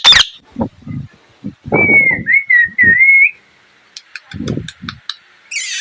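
Pet parrot vocalising: a wavering whistle of about a second and a half, a few faint high clicks, then near the end a loud, harsh squawk.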